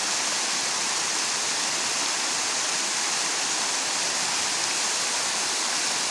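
Hot spring water cascading down mineral-crusted rock terraces into a shallow pool: a steady rush of falling and splashing water.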